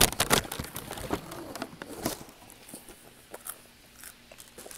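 A child biting into and chewing a crisp Rice Krispie treat: a quick burst of crunching at the start, another crunch about two seconds in, then softer, sparser crunching that fades.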